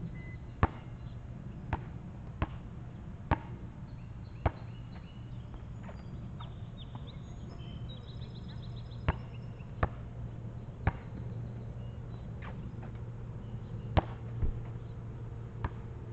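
Basketball bouncing on an asphalt court: single sharp smacks at uneven intervals, about a dozen in all, over a steady low hum. A bird chirps faintly in the middle.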